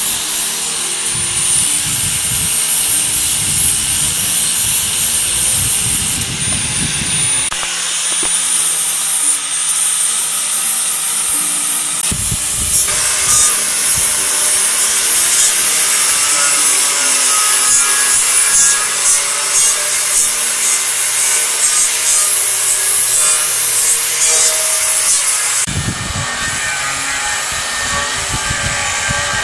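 Electric angle grinder with a sanding disc running over stainless steel sheet: a continuous high scraping hiss that shifts in strength as the disc is pressed and moved, roughening the steel's surface. The high hiss drops away near the end.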